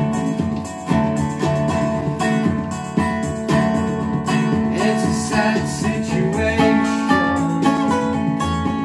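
Resonator guitar being played, a run of plucked and strummed notes in a steady rhythm.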